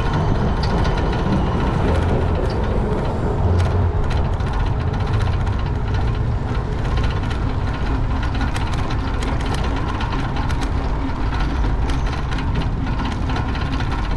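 Bicycle riding heard from a camera mounted on the bike: a steady low rumble of wind on the microphone, with scattered light clicks and rattles from the bike, more of them in the second half.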